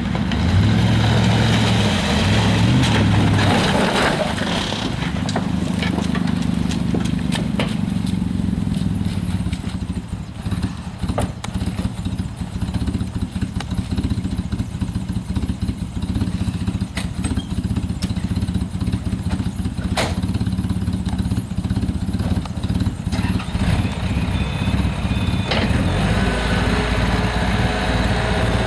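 Chevy pickup's 5.3 L LS V8 running as the truck is driven hard, revs rising and falling, with several sharp knocks and clunks along the way.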